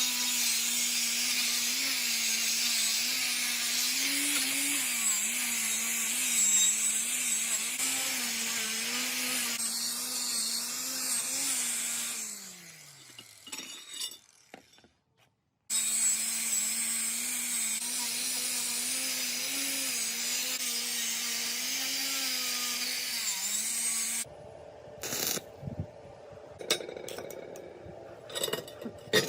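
Electric power tool running with a steady motor hum and a harsh high hiss, its pitch wavering slightly under load. It is switched off about twelve seconds in and winds down, then runs again for about eight seconds before stopping. Light clinks and knocks follow near the end.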